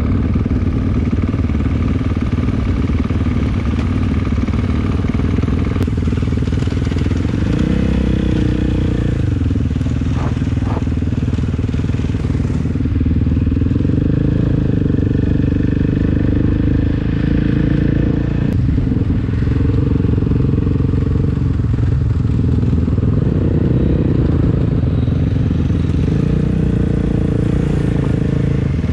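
Off-road vehicle engine running under way, its pitch stepping up and down several times with throttle and gear changes.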